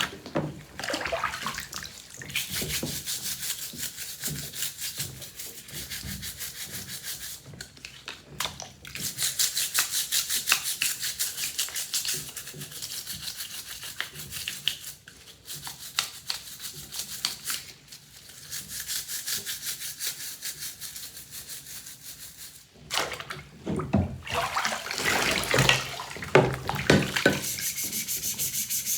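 A brush scrubbing Shark vacuum parts in rapid back-and-forth strokes, in spells broken by short pauses.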